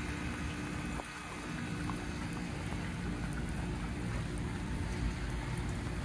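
Raindrops tapping on the camera microphone over the steady low hum of outdoor heat-pump units running.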